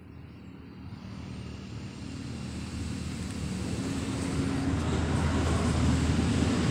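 A passing engine, its rumble growing steadily louder and peaking near the end.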